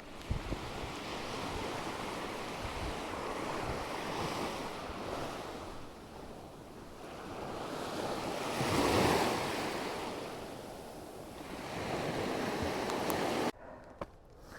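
Wind buffeting the action camera's microphone, a rushing noise that swells in gusts, is loudest a little past halfway and cuts off suddenly near the end. After it stops, the runner's footsteps show through as light taps.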